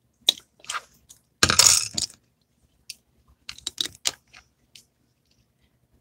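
Scattered soft clicks and a short rustling burst close to a phone's microphone, with a cluster of small clicks a couple of seconds later.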